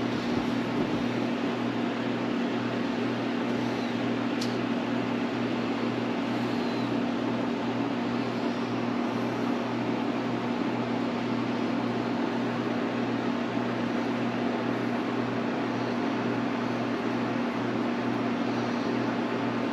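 A steady machine hum with a low drone and an even hiss throughout, like a room fan or air-conditioning unit running. One faint sharp click about four and a half seconds in.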